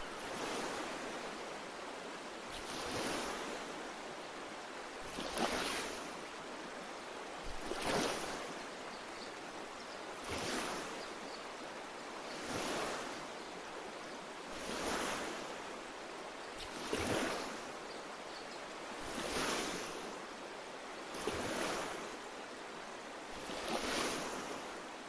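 Waves washing in at an even rhythm, a hissing swell about every two and a half seconds.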